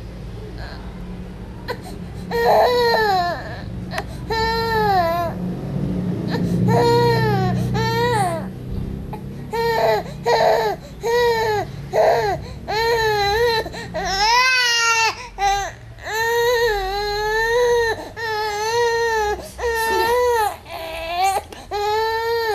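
Baby crying: a string of wailing cries, each rising and falling in pitch, coming closer together in the second half, with one higher-pitched squeal about two-thirds of the way through.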